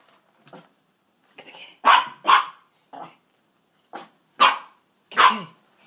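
Small dog barking at a cat in short, sharp barks: a few quiet ones among four loud ones, spaced irregularly.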